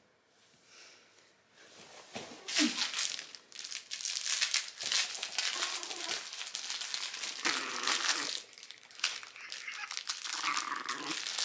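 A crinkly fabric dog toy crackling and rustling as a small dog bites and tugs at it. The crackle starts about two seconds in and comes and goes with the dog's chewing.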